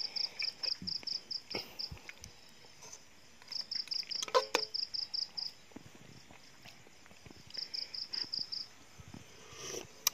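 An insect chirping in trains of quick, even high-pitched pulses, about six a second, three times with pauses between. About four seconds in, a metal spoon clinks against the aluminium pot a couple of times.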